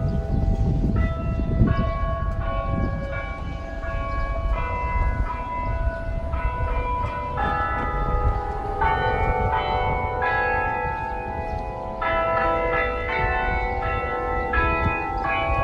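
Background music of chiming, bell-like notes playing a melody, each note ringing on as the next one starts, over a steady low rumble.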